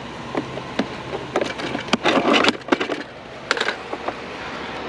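Clattering knocks of scrap items being handled and set onto a trailer: scattered sharp knocks, with a dense burst of clatter about two seconds in and a shorter one near three and a half seconds.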